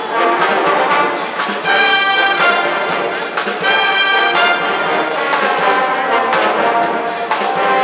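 Brass band of trumpets and trombones playing a loud up-tempo tune over drum hits, with two long held chords along the way.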